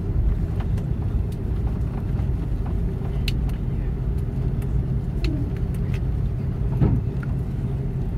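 Airbus A330-300 cabin noise during the landing roll with the spoilers raised: a steady low rumble of engines and undercarriage on the runway, with scattered sharp clicks and rattles and one brief louder swell near the end.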